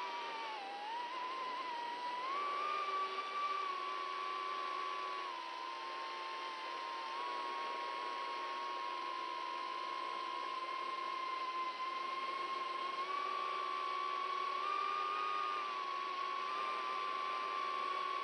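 Small FPV cinewhoop quadcopter's brushless motors and propellers, heard from its onboard camera, giving a steady whine whose pitch drifts up and down a little with the throttle.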